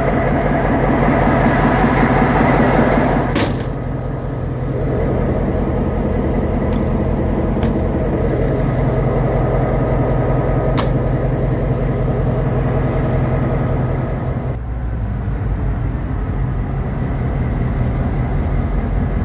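EMD SD38-2 locomotive's non-turbocharged 16-cylinder diesel engine running under load. It throttles down about three seconds in, steps down again around fifteen seconds, then slowly builds back up. A few sharp clicks sound over it.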